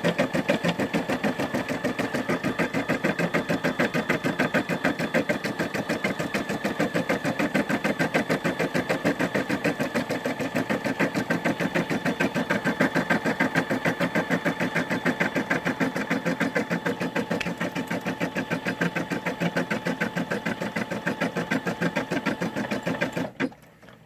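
Brother SE600 sewing/embroidery machine running in embroidery mode, its needle stitching out a design in a rapid, even rhythm. The stitching stops abruptly shortly before the end.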